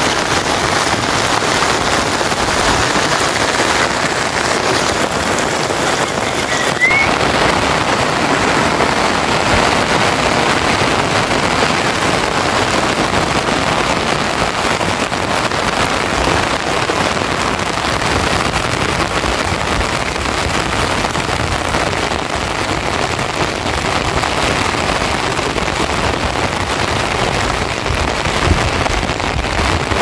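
Heavy rain falling steadily, a dense, even hiss with no let-up.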